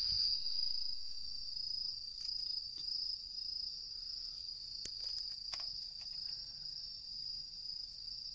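Crickets singing a steady, unbroken high-pitched trill, with a couple of faint clicks about five seconds in.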